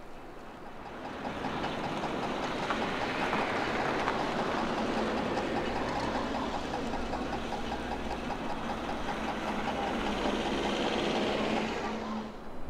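A vehicle driving along a snow-covered street: its tyres make a steady rushing noise with a fast rattle in it. The noise builds over the first two seconds and stops abruptly near the end.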